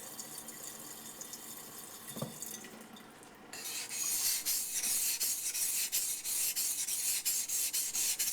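Yanagi knife blade being stroked back and forth on a muddy waterstone, a rhythmic scraping as the back bevel is ground. It starts about three and a half seconds in, after a quieter stretch with a single soft knock.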